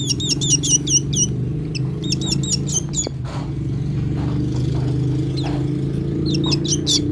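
Nestling bird's begging chirps: quick series of short, high, downward-sliding chirps in bursts through the first second, again about two seconds in, and near the end, sounding while it is asked if it is hungry. A steady low drone, like a running engine or motor, runs underneath.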